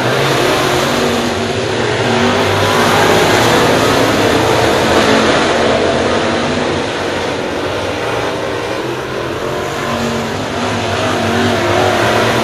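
A field of race cars' engines running at speed around a dirt oval track. The mixed engine noise swells as the pack comes past a few seconds in, eases off, and rises again near the end as a car goes by close.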